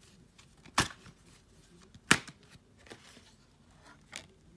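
A deck of oracle cards being shuffled: sharp card snaps about a second and a quarter apart, two strong ones and a softer one near the end.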